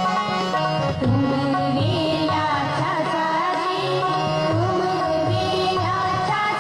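Indian devotional music with tabla drumming keeping a steady beat under a bending, wavering melody line.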